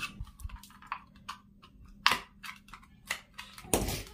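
Screwdriver prying at the plastic casing and fabric grille of a Bluetooth speaker, with hands working the speaker body loose: a run of small clicks and scrapes, the sharpest about two seconds in, and a longer scrape near the end.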